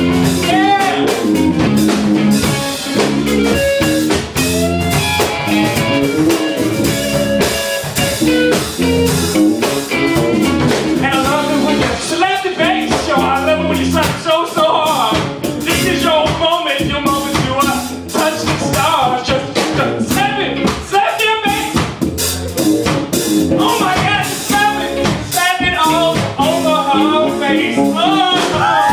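Band music with a singer over drum kit and guitar, in a bluesy, funky style.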